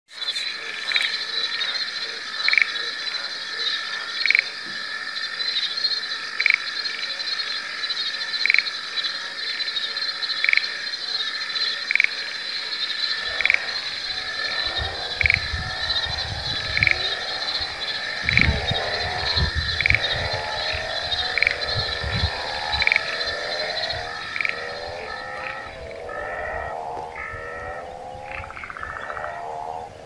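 A frog chorus: a steady high trilling with a sharper call repeating about every two seconds. About a third of the way in, a lower, faster pulsing chorus joins, along with a low rumble.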